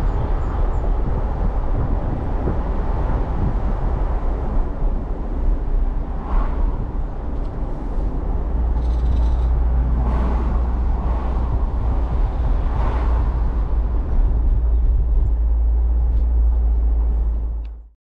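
A car driving, with steady road and wind noise over a heavy low rumble and a few brief swells; it fades out quickly near the end.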